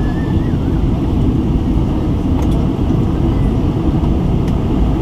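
Steady roar inside the passenger cabin of a Boeing 747-400 on approach, the rush of airflow and its four Pratt & Whitney PW4056 engines, deep and even.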